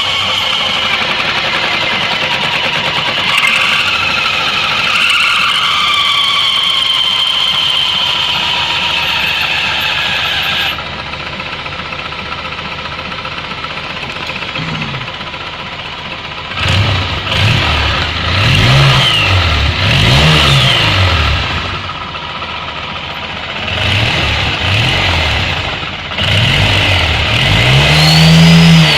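Suzuki Burgman 650 engine running with its CVT variator exposed: a high whistle that wavers in pitch comes from the variator for the first ten seconds or so. From about halfway through, the engine is blipped several times, each rev rising and falling.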